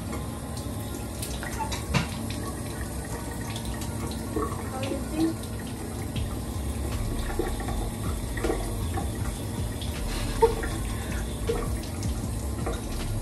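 Tap water running into a sink, with splashing as water is scooped up to wash a face, and a couple of sharp clicks.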